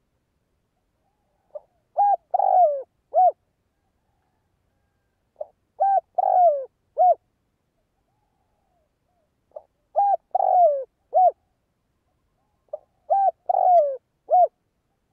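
Spotted dove cooing: four repeated phrases about four seconds apart, each a short soft note followed by three coos, the middle one longer and falling in pitch. It is the provoking call of a caged decoy male, used to draw wild males in.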